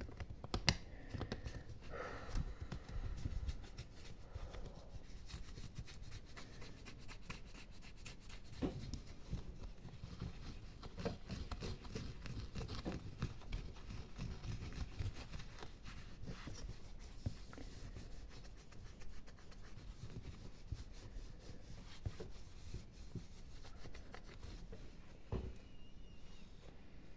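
ASMR scratching and gripping close to the microphone: fingernails scratching and fingers gripping an object, a dense run of fine scratches and ticks over a low rumble of handling.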